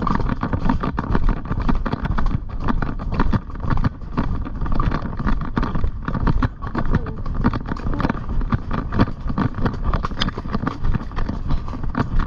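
A ridden pony's hoofbeats, a run of irregular knocks, over a heavy steady rumble of wind and movement on the GoPro's microphone.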